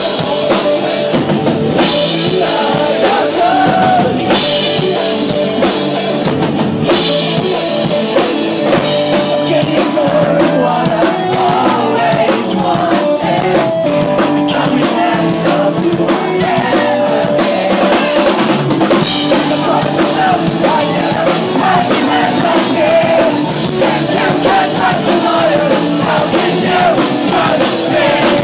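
Pop-punk band playing live: a lead vocal singing over electric guitars and a drum kit, loud and steady, with a stretch of fast, even drum hits about ten seconds in.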